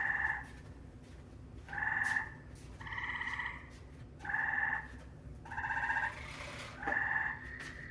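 A frog calling over and over: about six short, buzzy calls roughly a second apart.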